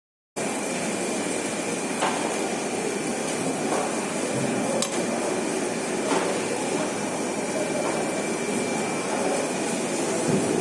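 Knife or cleaver knocking on a cutting board and bone while a giant grouper is butchered: sharp single knocks every second or two over a steady background hum with a faint high whine.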